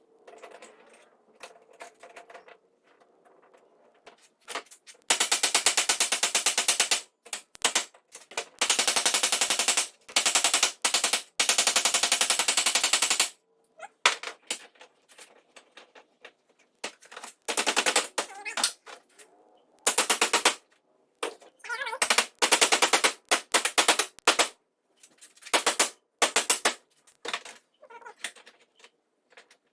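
Arc welding crackling in a string of short weld bursts, each about one to two seconds long with pauses between. The longest bursts come in the first half.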